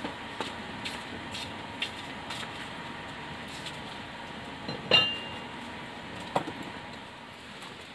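Bundle of dry firewood sticks being handled and set down, with light clicks and then a sharp knock that rings briefly about five seconds in, and a second, smaller knock over a second later.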